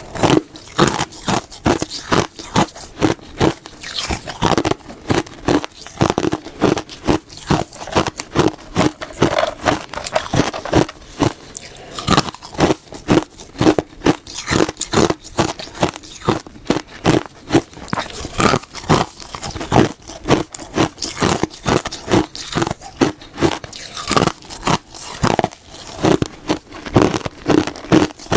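Close-up crunching and biting of crisp, hard food, a steady run of sharp crunches a few times a second.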